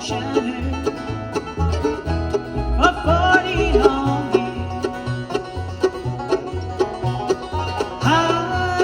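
Bluegrass band playing an instrumental passage: banjo and guitar picking over a bass that alternates between low notes on the beat, with a sliding melody line rising in twice.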